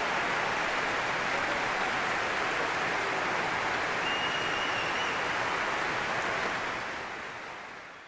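Large audience applauding steadily, fading away over the last second or two.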